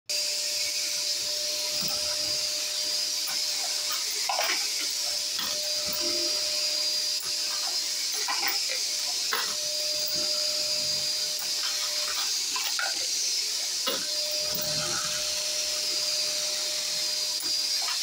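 Vacuum cleaner running steadily, housed in a bench cabinet and drawing brass trimmings through a hose from a motor-driven case trimmer on a progressive reloading press. Scattered knocks and clicks come from the press being worked.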